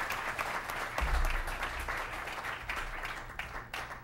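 Audience applauding, a round of clapping that tapers off near the end.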